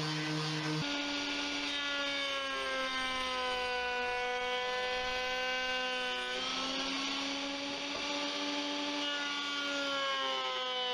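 An electric pad sander hums steadily for the first second. Then a router spins a chamfer bit as a hardwood worktop block is fed along the fence: a high motor whine over the hiss of the cut. The whine sags in pitch as the cut loads it and rises again when the load eases.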